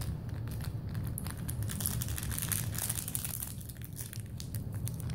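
A kitten wrestling a toy on a rug: quick crinkling, scratching rustles, busiest in the first three seconds and thinning out after.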